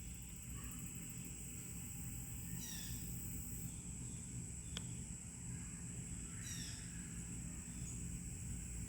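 Faint outdoor ambience: a steady high-pitched drone over a low rumble, with two short falling chirps about four seconds apart and a single faint click near the middle. No siren is sounding.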